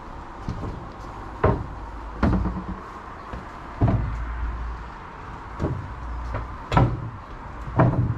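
Footsteps knocking on wooden scaffold boards, an uneven knock roughly every second, over a steady background hum.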